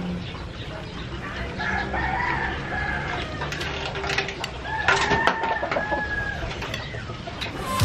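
Chickens clucking, with drawn-out calls about two seconds in and again around five seconds in.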